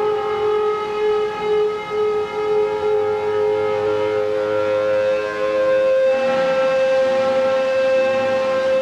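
Music: a droning chord of several steady held tones, changing to a new chord about six seconds in.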